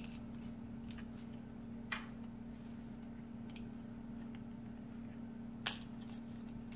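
A few light clicks and taps of a hard plastic bike-lock mounting bracket and its screws being handled, the sharpest near the end, over a steady low hum.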